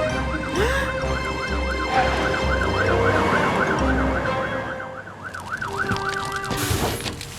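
Cartoon fire truck's siren wailing up and down quickly, about three times a second, over background music. It stops near the end.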